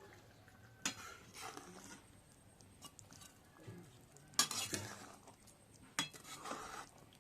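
Spoon scraping and stirring in a cooking pot: three strokes, each starting with a sharp clack against the pot and trailing off into a scrape of about a second.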